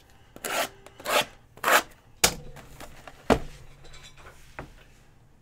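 Cardboard trading-card hobby boxes slid across a table in three quick scrapes, then set down with two sharp knocks about a second apart and a lighter click near the end.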